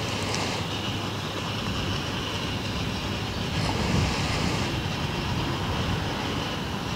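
Wind buffeting the microphone: a steady low rumble that swells about four seconds in.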